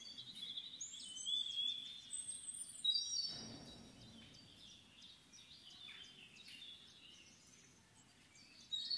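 Small birds chirping and singing: short high whistled notes and trills, busiest in the first three seconds, then fainter, over a faint steady hiss.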